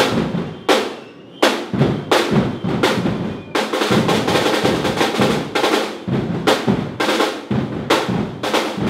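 Marching bass drums beaten hard and fast with sticks, a loud, uneven pounding with rolls, easing briefly about a second in.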